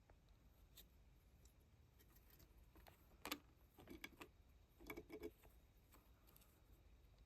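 Faint clicks and crunches of a hamster gnawing on wooden roots, in three short clusters around the middle, the first the loudest, against near silence.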